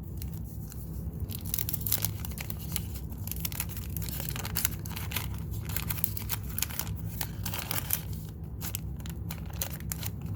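Wax paper wrapper of a Garbage Pail Kids pack being torn open and crinkled, a dense run of crackling rips starting about a second in.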